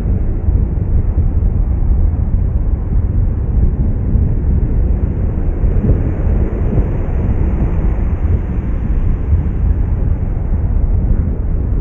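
A loud, steady low rumble with no clear pitch, a dense noise that fills the low end.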